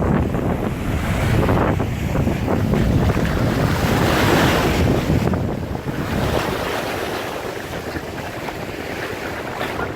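Big ocean waves breaking and washing in, with wind buffeting the microphone. The surf swells loudest a couple of seconds in, then eases off.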